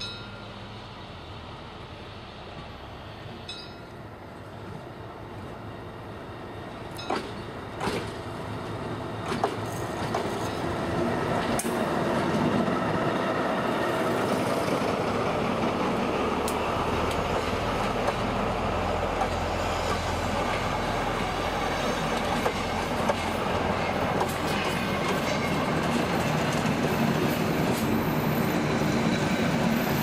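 Passenger train rolling slowly past close by, its wheels clicking over rail joints. A diesel locomotive's deep engine rumble grows louder from about halfway through as an ex-DR class 228 (V 180) comes alongside.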